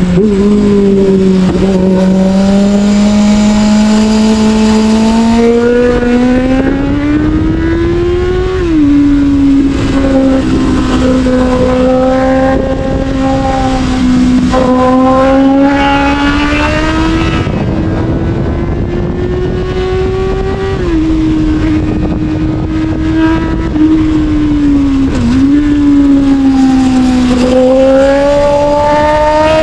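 Sportbike engine running under way, its note climbing slowly and then dropping sharply a few times as gears change, over steady wind rush.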